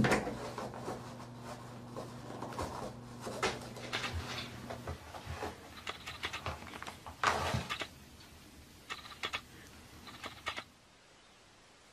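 A cat pawing at a toilet paper roll: irregular bursts of rustling paper and quick clicks as the roll turns and rattles on its holder. A steady low hum runs under the first half.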